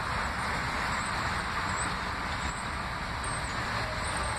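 Steady noise of an R143 subway train approaching along an elevated steel track, with wind buffeting the microphone.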